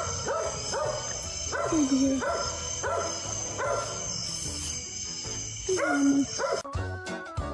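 Wild turkeys gobbling in repeated bursts of short calls that fall in pitch, over background music. The calls stop near the end, where only music goes on.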